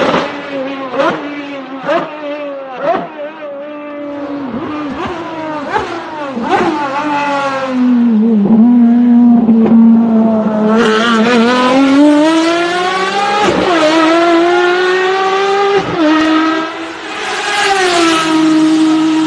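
Ferrari FXX-series V12 track car engine at high revs. It gives several quick throttle blips on downshifts, holds a low steady note, then pulls in a long rising climb, with sharp drops at upshifts partway through and near the end, and finishes on a high steady note.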